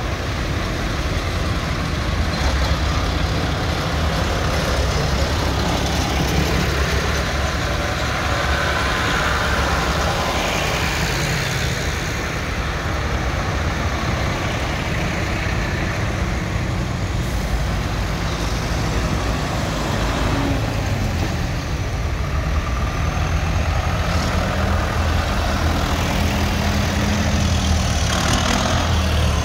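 Farm tractors' diesel engines running as a procession of tractors drives past one after another on a wet road, the engine pitch rising and falling as each one passes.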